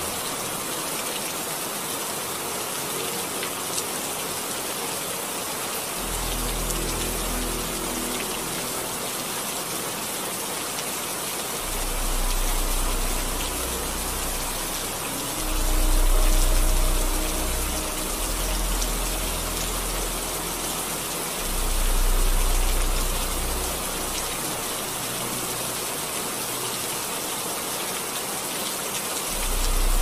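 Steady rain hiss, with deep low rumbles swelling and fading several times.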